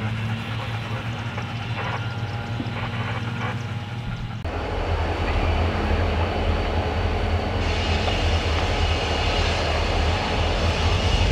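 BNSF diesel locomotives approaching on the track, their engines running with a steady low rumble. The sound jumps sharply louder about four and a half seconds in and keeps building as they draw near.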